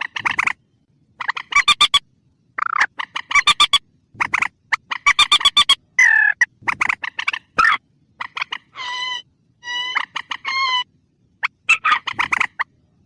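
Recorded calls of a mandar (swamp rail) played as a hunting lure: bursts of rapid clucking notes, several to a second, coming in clusters with short gaps, and a few longer, clearly pitched notes a little past the middle.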